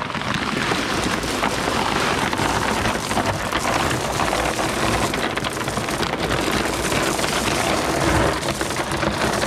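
Water-softener salt pouring from a bag into the brine tank: a steady rush of many small grains clicking as they land.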